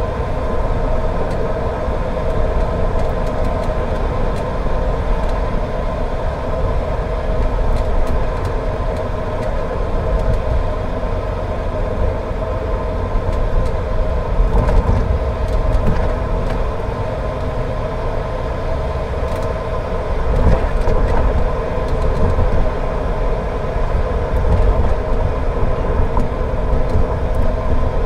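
Car driving along a road: a steady low rumble of tyres and engine with a constant hum, and faint scattered ticks on top.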